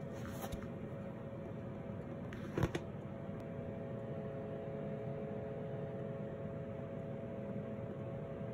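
Steady mechanical hum with a few faint steady tones running under it, and a short knock about two and a half seconds in.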